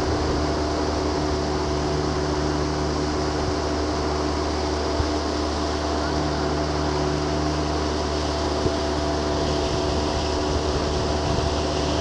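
Boat engine running steadily under way, a constant hum with a few steady tones; a brighter hiss comes in near the end.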